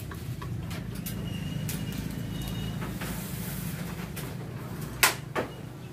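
Rustling leaves and a scatter of sharp snaps and clicks as rambutan fruit clusters are broken off the branches by hand, with two louder snaps about five seconds in, over a steady low hum.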